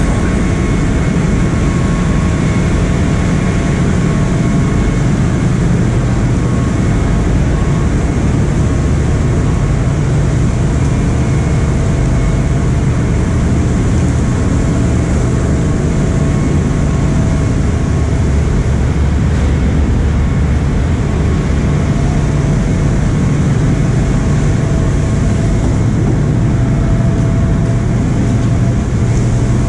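Ship's engines running under way with a loud, steady drone and low hum, with a few faint steady tones riding above it.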